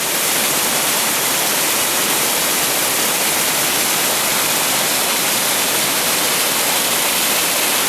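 A small cascading waterfall on a mountain stream running high with more water than usual, giving a loud, steady rush.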